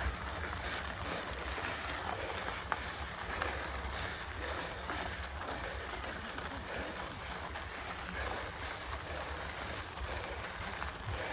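Wind rushing on the microphone over the steady noise of a mountain bike riding a dirt trail, with scattered small clicks and rattles.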